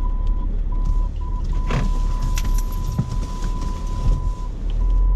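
SUV engine and road noise heard inside the cabin during a turn-around, with the reverse parking-sensor warning beeping: short beeps that merge into one continuous tone for about three seconds in the middle, then break into beeps again. A few light clicks sound over it.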